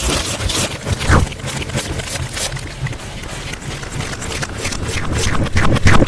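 Slime ASMR trigger sounds, processed with distortion: dense, irregular wet clicks and crackles, with louder pops about a second in and near the end.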